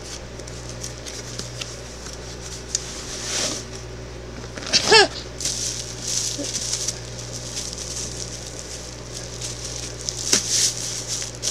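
Plastic bubble wrap crinkling and rustling in irregular bursts as a bubble-wrapped package is handled and pulled from a cardboard box.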